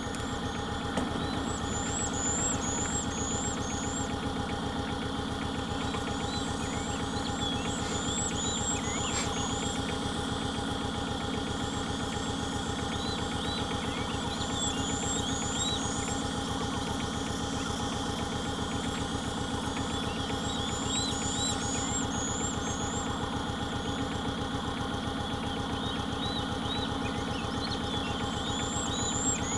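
Vehicle engine idling steadily, with birds calling in short runs of four or five high chirps every few seconds.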